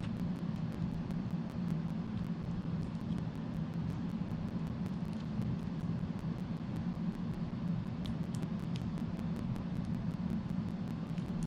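Steady low hum with an even background hiss, and a few faint small clicks about eight seconds in.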